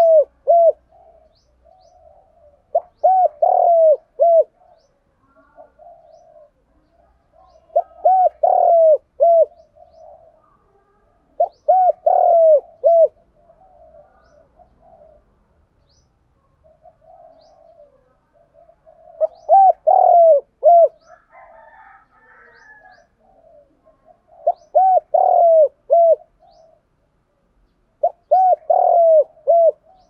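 Spotted dove cooing: a phrase of three or four low, falling coos, repeated about every four to five seconds, with a longer pause about halfway through.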